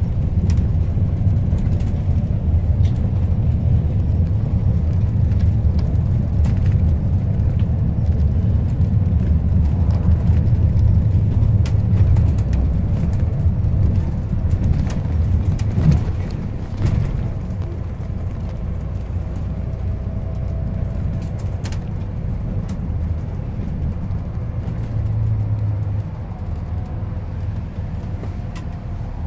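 A school bus driving, heard from inside the bus: a steady low rumble of engine and road noise with scattered light rattles. It eases off somewhat a little over halfway through.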